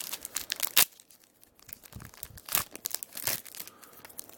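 A Fleer Basketball trading-card pack wrapper being torn open and crinkled by hand: a string of irregular crackles and rustles, the sharpest about a second in.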